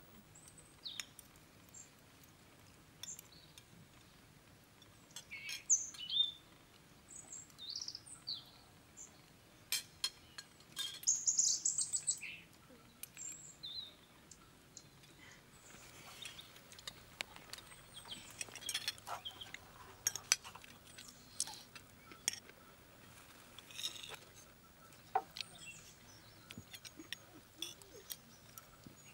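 Small songbirds chirping and calling in short high notes, busiest in the first half, with scattered light clicks of cutlery on plates.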